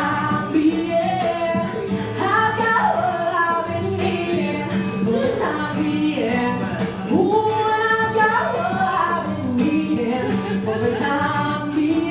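A woman singing long, sliding held notes without clear words, over acoustic guitar and a steady drum beat, played live.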